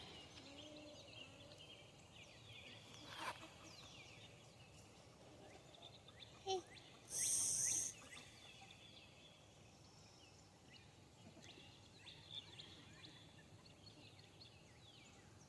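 Faint songbirds chirping in quiet morning air, with a brief shrill high-pitched sound about seven seconds in.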